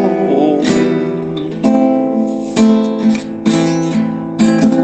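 Acoustic guitar strumming chords in a song's instrumental passage, about one strum a second.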